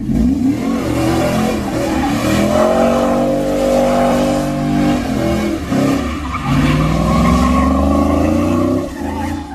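Recorded car engines revving hard for a burnout, with tyre squeal. The pitch climbs over several seconds, drops about six seconds in, then climbs again.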